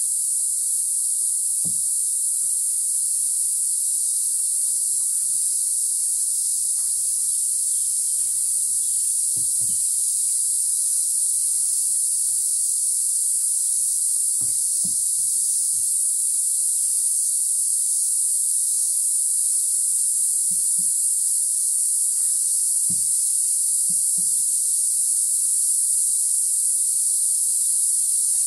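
Dense chorus of rainforest insects, an unbroken high-pitched shrill, with a few soft low knocks now and then.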